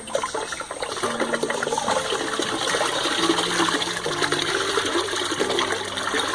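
Watery white-clay slurry splashing and sloshing steadily, with many small wet clicks.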